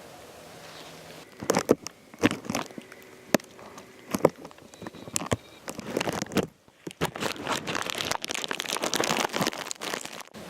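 Close crackling and crunching rustles of movement against the microphone, scattered sharp crunches at first, then dense continuous crackling in the last few seconds.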